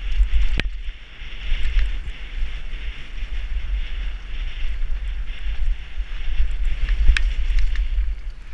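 Wind buffeting the microphone of a helmet-mounted camera during a fast downhill mountain-bike descent, a steady deep rumble with hissing trail and tyre noise over it. Two sharp knocks from the bike cut through, one about half a second in and one about a second before the end.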